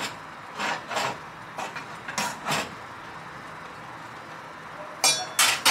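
Metal tongs scraping and clinking against a pan as broccoli is turned over, in several short bursts, with louder clatter near the end.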